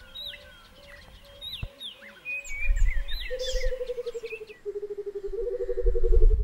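Wild bush soundscape: several birds chirping in short rising and falling calls, with a repeated note that becomes a pulsing trill, stepping down in pitch and back up. Under it is a deep rumble that swells twice. It all cuts off abruptly at the end.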